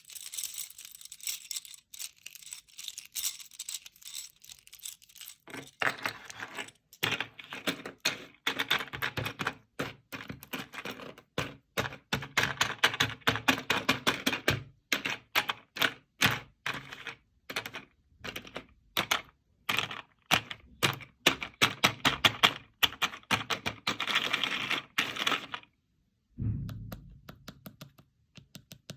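Quick clicking and tapping from a handmade paper fidget board being played with, many crisp clicks a second, with a short low thump near the end.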